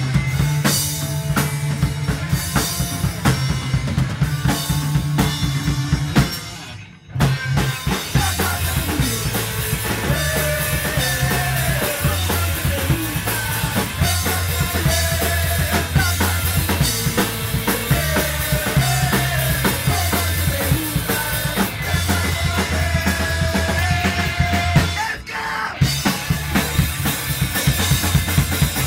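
Live rock band playing: drum kit with kick and snare, bass and electric guitars. The band stops for a moment about seven seconds in and again about four seconds before the end, then crashes back in.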